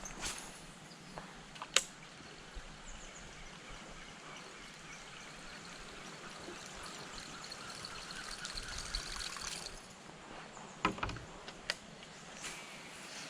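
Water lapping and trickling against a kayak hull, a steady watery wash that swells a little past the middle. A few sharp clicks stand out about two seconds in and again near the end.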